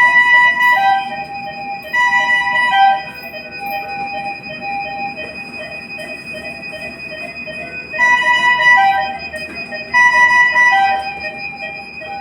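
Bedside ventilator and patient-monitor alarms beeping: a group of high electronic tones at the start and again two seconds later, repeating about eight and ten seconds in, over a steady high-pitched tone.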